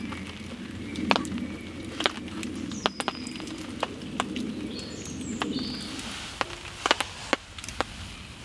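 Woodland ambience: birds calling with short, high whistled notes, over scattered sharp clicks and taps and a steady low background hum.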